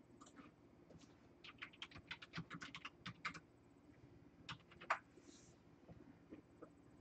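Faint typing on a computer keyboard: a quick run of a dozen or so keystrokes, then a couple of single key clicks.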